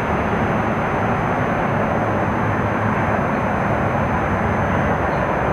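Spirit box (a radio scanning through stations) giving a steady hiss of static with no voices coming through.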